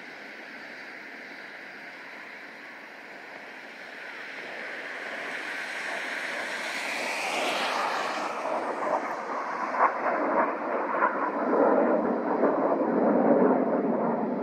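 Jet engines of a formation of BAE Hawk jets passing overhead, a distant hiss at first, a rising whine about halfway through, then growing steadily louder toward the end.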